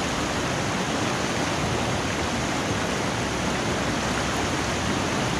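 Fast mountain river rushing over rocky rapids: a steady, even roar of white water.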